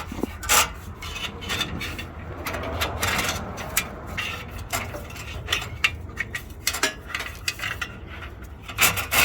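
Steel anti-theft cable being threaded through holes in a catalytic converter clamp and the chassis, scraping and clinking against the metal in irregular rubs and sharp clicks.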